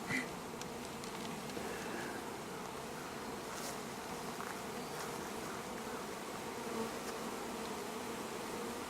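Honeybees buzzing in a steady, even hum as a package of bees is installed into an open hive.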